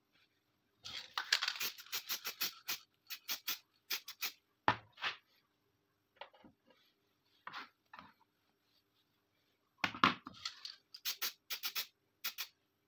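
Small steel parts of a 30-bore pistol and needle-nose pliers clicking, tapping and scraping against a sheet-metal box lid and the table as the parts are handled. The clicks come in irregular clusters, the loudest a knock about ten seconds in.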